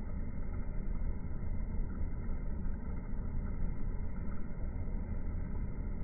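Steady low outdoor rumble, with no bird calls.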